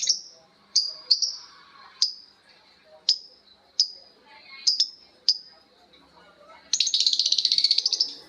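Lovebird giving sharp, high single chirps, about one a second. Near the end it breaks into a rapid chattering trill lasting about a second and a half: the 'ngekek' call.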